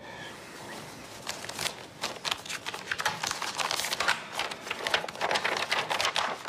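Sheets of paper rustling and crackling as they are picked up and leafed through, starting about a second in.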